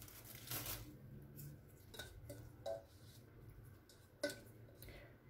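Quiet handling sounds: a few soft taps and clicks as gloved hands dip Maria biscuits in milk in a stainless steel bowl and set them into plastic cups on a metal tray.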